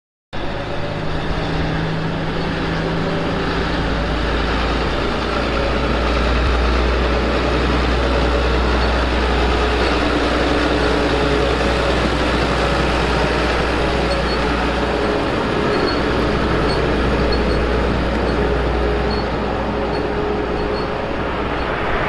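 John Deere 7920 tractor's diesel engine running steadily, with a strong deep hum.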